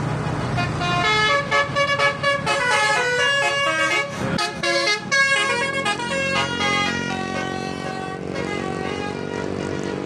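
Tour bus basuri (telolet) multi-tone air horn playing a tune: a quick run of changing notes, then longer held notes in the second half.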